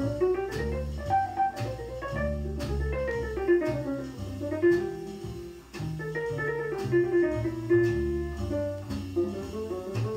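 Jazz record played from vinyl through JBL 4312D monitor loudspeakers and heard in the room: a walking bass line and light drums under a melodic line.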